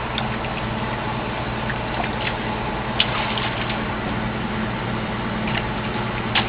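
Engine idling steadily with a low hum under a wash of water noise, with two short sharp knocks, one about three seconds in and one near the end.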